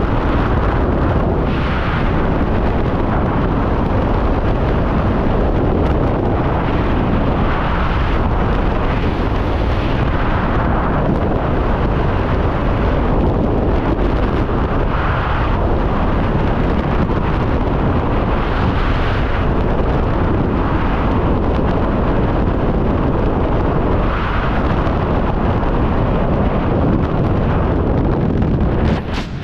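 Freefall wind rushing over a skydiving helmet camera's microphone, a loud steady rush with no let-up. It drops off sharply near the end as the student's parachute deploys.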